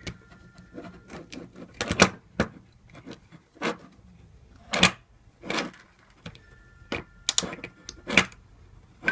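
Levers of a dismantled Union 2234 five-lever mortice lock being lifted out one by one and set down. Small metal parts click and clink irregularly, with a few sharper clinks among them.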